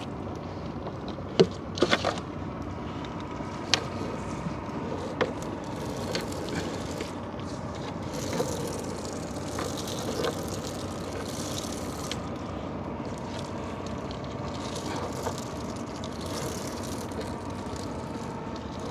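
Small fishing boat's engine running steadily, with a few short sharp knocks over it, the loudest about one and a half and two seconds in.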